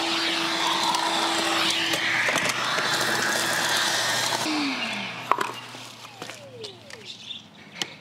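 Milwaukee M12 FUEL 12-volt cordless wet/dry vacuum running with a steady whine and rushing air, then about four and a half seconds in its motor winds down with a falling pitch as the battery goes flat. A few clicks follow.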